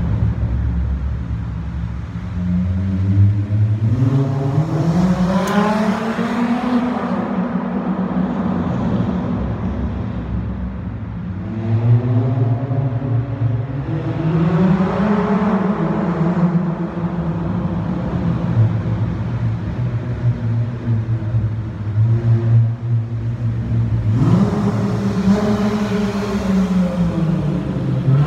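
Dodge Charger SXT's V6 with an aftermarket turbine-style muffler, driving around a concrete parking garage. It revs up and eases off twice, sits at a steady idle, then revs sharply again near the end.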